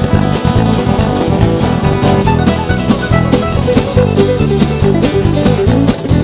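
Background country-bluegrass music: an instrumental passage with plucked guitar and banjo over a steady beat.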